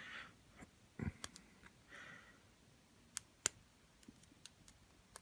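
Faint, scattered metallic clicks of a hacksaw-blade pick working the pin tumblers of a Silverline padlock held under tension, as the first pins set. The clicks are irregular, and the loudest comes about three and a half seconds in.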